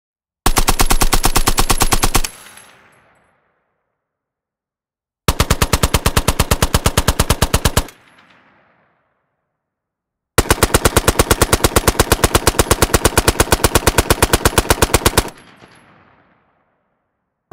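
Vickers .303 British water-cooled machine gun firing three bursts of a fast, even stream of shots: a short one, a slightly longer one, then a long burst of about five seconds. A fading echo trails after each burst.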